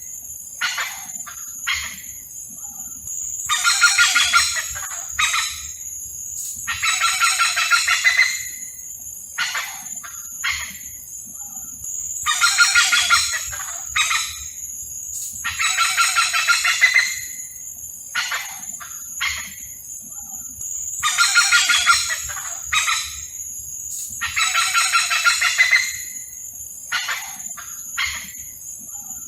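Hornbills calling: a loud, harsh call lasting about a second repeats every 4 to 5 seconds, with short single notes between. The uploader takes them for courtship calls.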